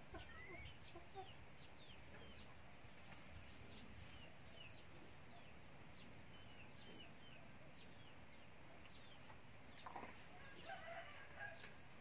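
Faint chicks peeping: short, high, falling notes repeated every half second or so, with a hen's soft clucking about ten seconds in.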